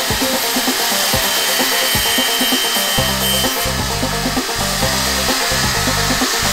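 Angle grinder on a base plate sawing through plywood at a medium speed setting, its disc giving a steady high running noise through the cut. Background music plays over it.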